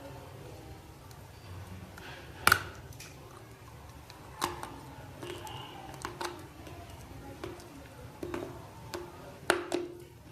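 Big chunks of raw multani mitti (Fuller's earth clay) bitten and chewed close to the microphone: a handful of sharp crunches a couple of seconds apart, the loudest about a quarter of the way in, with softer wet chewing and mouth sounds between.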